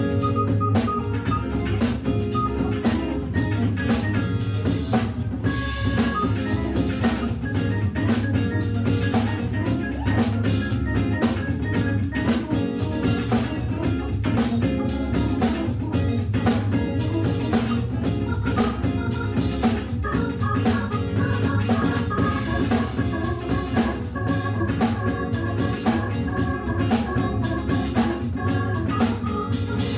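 Live organ-trio jazz: a Hammond B3 organ through a Leslie speaker playing over a drum kit groove, with electric guitar. A high held organ tone comes in about two-thirds of the way through.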